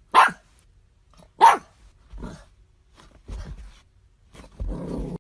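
Golden retriever puppy barking: two sharp barks about a second apart, then a few softer barks and a longer, louder one near the end.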